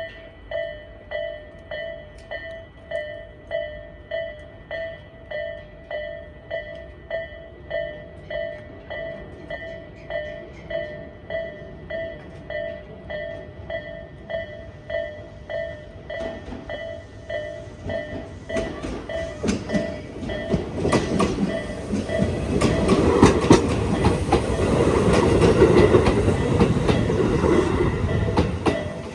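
Level crossing alarm with the Tobu-style warning tone, a regular repeated electronic ding about one and a half times a second. From about halfway in, a Tobu 8000 series electric train comes up and passes, growing louder, with wheels clacking over rail joints; it is loudest over the last few seconds.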